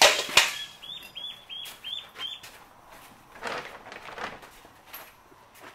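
A loud rustle, like a hand going into a feed sack, then a quick run of about eight short, high-pitched peeping calls from young ducks.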